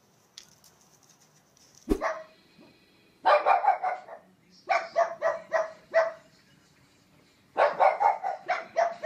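A single thump about two seconds in, then pugs barking in quick runs of several barks each, with short pauses between the runs.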